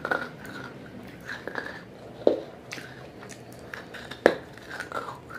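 Close-up crunching as pieces of wet, soaked terracotta clay pot are bitten and chewed: a run of sharp, irregular crunches, the loudest about two seconds in and about four seconds in.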